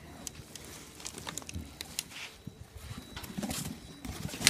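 Crinkling plastic wrap and rustling cardboard as an inverter is handled and pulled from its box, with scattered small clicks, a busier stretch of crackling late on, and a sharp knock at the very end.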